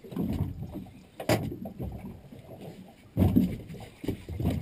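Water slapping against the hull of a small boat in uneven bursts, with a sharp knock a little over a second in.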